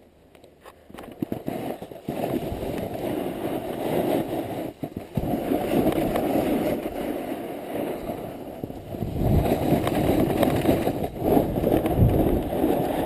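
Snowboard sliding and scraping over snow, a rough crackling rush that builds up in the first couple of seconds and briefly drops out twice.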